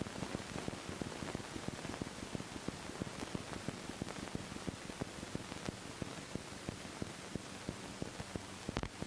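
Surface noise of an early Movietone optical sound-on-film track: a steady hiss with dense, irregular crackle and a low hum beneath, and a sharper click near the end.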